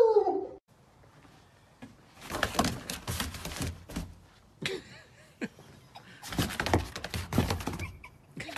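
Irregular thumps and scuffs of a dog's paws bounding on a wooden deck, in two spells of a second or two each with a few single knocks between.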